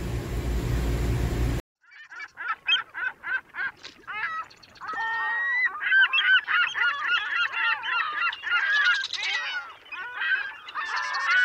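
A steady low hum that cuts off suddenly about a second and a half in. Then a flock of birds calls in quick, repeated pitched calls, separate at first and then thick and overlapping from about five seconds in.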